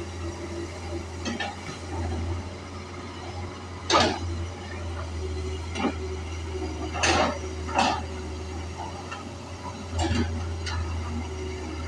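Excavator's diesel engine running with a steady low hum, with half a dozen sharp metallic clanks at uneven intervals, the loudest about four seconds in.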